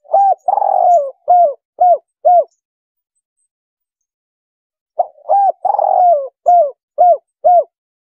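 Spotted dove cooing: two matching phrases about five seconds apart, each a short note, a long drawn-out coo and then three quick short coos.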